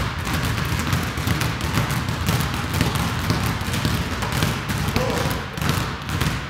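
Several basketballs being dribbled at once on a gym floor: a dense run of overlapping bounces with no let-up.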